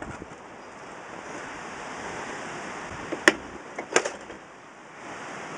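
Steady wind rush on the microphone. About three seconds in comes one sharp knock, then a quick cluster of knocks about half a second later, as the tipped-over mower and the plastic oil-catch jug are handled.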